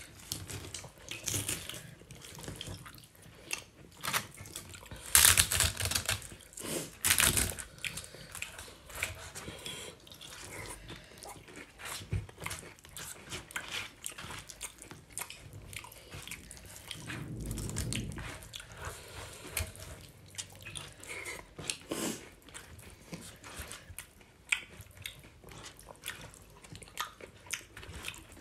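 Eating sounds: chewing and wet smacking as spicy vegetable khichri is mixed and eaten by hand. It is a string of small moist clicks, with louder bursts about five to seven seconds in.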